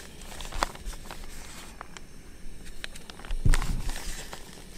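Light handling noises of fish fillets being worked in flour: scattered soft clicks and rustles, with one louder dull bump about three and a half seconds in.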